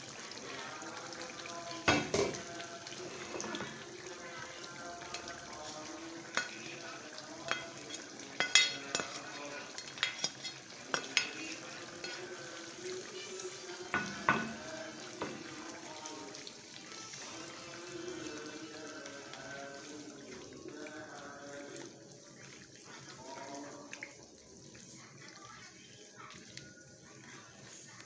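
Chicken and bottle gourd soup simmering in a nonstick pan, with a plastic spatula knocking and scraping against the pan as malunggay leaves are stirred in. The sharp knocks come in a cluster between about two and fifteen seconds in; after that only the steady simmer is left.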